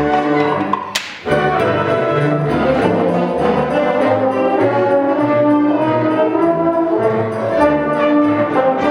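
High school concert band playing, with brass carrying sustained notes over a moving bass line. About a second in, a single sharp crack cuts in during a brief break in the music.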